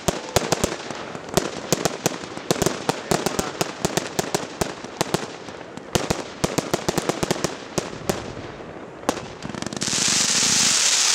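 Fireworks display: a rapid, irregular string of sharp bangs and crackling reports from aerial shells bursting. Near the end a loud steady hiss takes over as a volley of trailing comets goes up.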